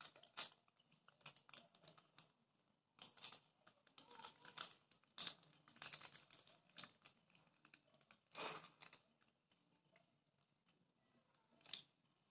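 Faint, irregular clusters of light taps and clicks from a feral pigeon (rock dove) moving on a window ledge. They are most frequent in the first three quarters, with one more tap near the end.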